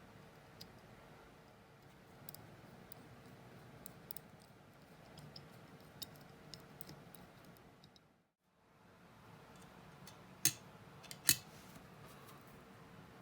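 Small, sparse metallic clicks and taps of watchmaker's tools handling watch parts, with two sharper clicks near the end.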